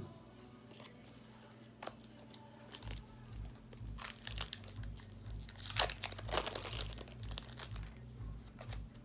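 Foil Pokémon trading-card booster pack crinkling as it is handled and torn open, with scattered light clicks and rustles. The crinkling is loudest about six seconds in.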